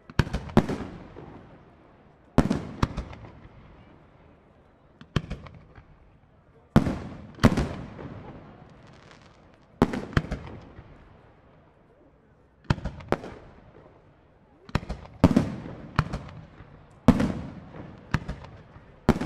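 Professional aerial firework shells, up to 4-inch, being launched and bursting overhead one after another. Each one is a sharp bang, often in close pairs, trailing off in a rolling echo, with a new one every one to three seconds.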